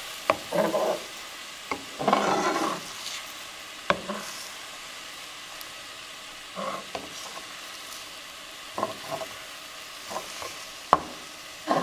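Wooden spatula scraping and stirring through slowly setting eggs in a nonstick frying pan, with a few sharp taps of the spatula on the pan, the loudest near the end. A faint steady sizzle of the eggs cooking on low heat runs underneath.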